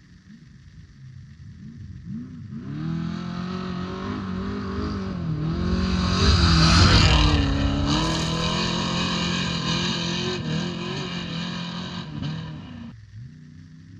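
Off-road race vehicle's engine at high revs approaching and passing close by, loudest about seven seconds in with a rush of tyre and dirt noise. The engine pitch dips briefly a couple of times, and the sound cuts off suddenly near the end.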